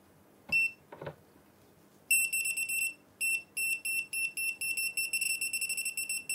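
GOYOJO digital torque screwdriver's buzzer beeping as a screw is tightened toward its 1 N·m preset: one short beep about half a second in, then a high pulsing beep from about two seconds in that comes faster and nearly merges into a steady tone, the sign that the torque is close to the set value.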